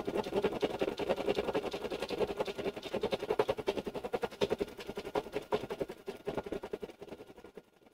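Embroidery machine stitching at speed: a rapid, even run of needle strokes that slows and stops near the end.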